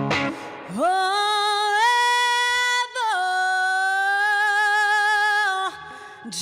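Female blues singer holding two long notes with no accompaniment: the first scoops up into pitch about a second in, and the second, slightly lower, follows at once. The band drops out just before them.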